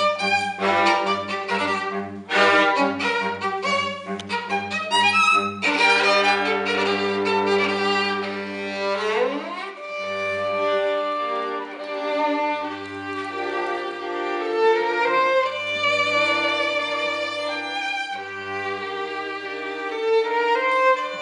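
Small string ensemble of violins and cello playing chamber music: quick, short detached notes for the first five seconds or so, then longer held notes over a low cello line, with a sliding rise in pitch about nine seconds in.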